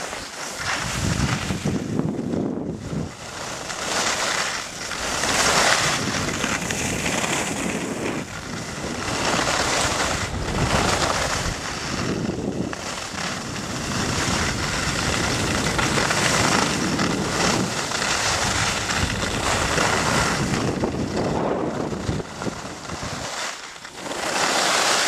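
Wind rushing over the microphone of a camera carried by a skier on a downhill run, mixed with skis scraping and hissing over the snow. The noise swells and eases every second or two.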